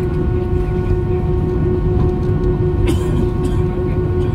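Airbus A320-232's IAE V2500 turbofans heard from inside the cabin, running steadily at an even pitch, a whine of several tones over a low rumble as the jet taxis. A brief click about three seconds in.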